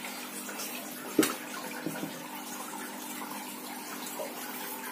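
Steady background hum and hiss, with a single sharp click about a second in and a fainter one shortly after as the circular saw's plastic body is handled.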